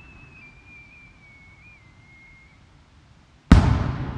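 A fireworks aerial shell rising with a thin whistle that falls slowly in pitch for about two and a half seconds. About three and a half seconds in, the shell bursts with a loud boom that rumbles on afterwards.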